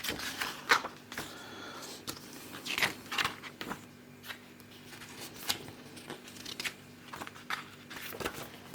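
Packaging rustling and crinkling in short irregular bursts as small printer accessories are handled and unwrapped, over a faint steady hum.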